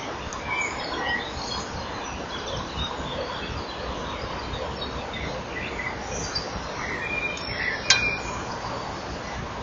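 Steady low rumble and hiss from a microphone in a kingfisher nest burrow, with scattered short high bird chirps and one sharp click about eight seconds in.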